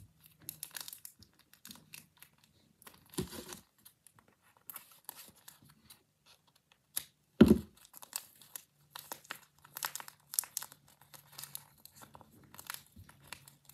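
Paper crinkling and sticky tape being pulled and torn as a stuffed paper bag is taped shut, with scattered short crackles. One sharp thump about halfway through.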